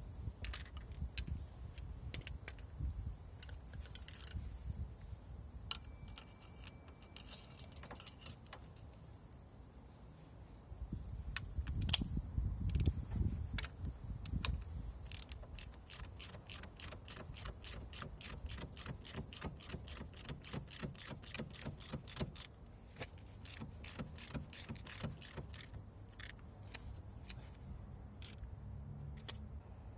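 Metal hand tools clinking against metal, then a long run of quick, even clicks, about four to five a second.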